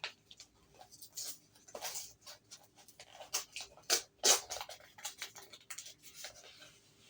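Irregular rustling and crinkling of coin packaging being handled and opened by hand, in uneven bursts, the loudest a few seconds in.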